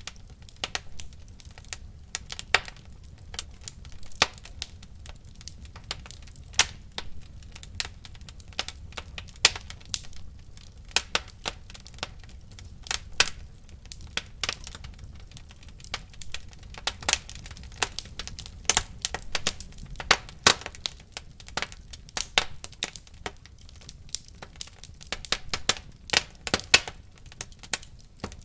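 Wood fire in a fireplace crackling, with irregular sharp pops and snaps over a low steady rumble of the burning fire.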